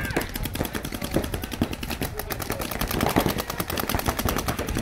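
Paintball markers firing rapid streams of shots, about ten a second, with strings from more than one marker overlapping.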